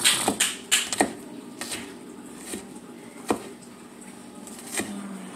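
Chef's knife chopping red onion on a wooden cutting board: a quick run of sharp knocks in the first second, then a few spaced strikes.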